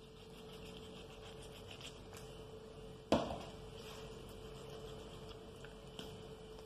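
Faint soft handling sounds of a knife and fingers working a raw chicken on a glass cutting board while it is deboned, with a single sharp knock about three seconds in and a faint steady hum underneath.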